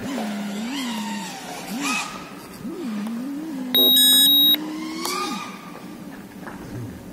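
Brushless motors and propellers of a 5-inch FPV freestyle quadcopter (F40 III 2306 2400kv motors) heard from the pilot's spot, the whine swooping up and down again and again as the throttle is punched and cut through flips and rolls. A loud electronic beep lasting under a second cuts in about four seconds in.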